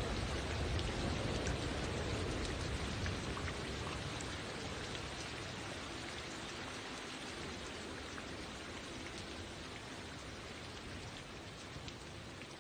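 Steady rain-like patter of many small drops, slowly getting quieter.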